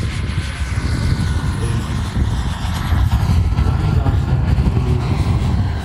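Turboprop engine of a 1:4-scale model DHC-2 Beaver running on a low pass while towing a glider: a thin, steady, very high turbine whine over a loud, dense propeller rumble.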